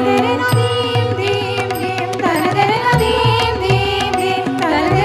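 Indian classical music: a melodic line with gliding notes over tabla drumming, with repeated low drum strokes.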